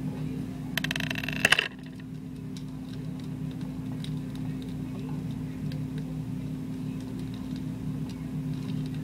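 Plastic Lego Bionicle pieces clicking and rattling in the hands as the figure is handled and fitted back together, in a quick cluster of sharp clicks about a second in, then only faint ticks. A steady low hum runs underneath.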